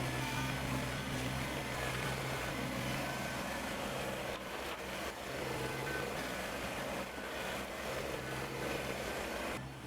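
Kubota BX sub-compact tractor's diesel engine running steadily, its note wavering a little with load.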